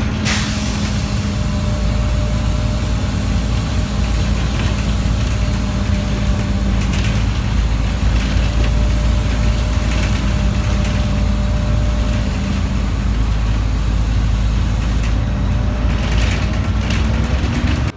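An engine running steadily at one unchanging pitch, with a heavy low rumble underneath.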